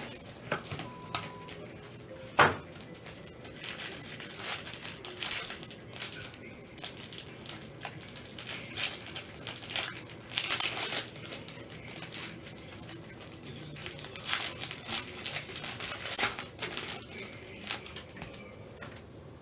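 Plastic shrink-wrap and packaging crinkling and rustling as sealed trading-card boxes are opened and the cards handled, in quick irregular bursts. There is one sharp knock about two and a half seconds in, the loudest sound.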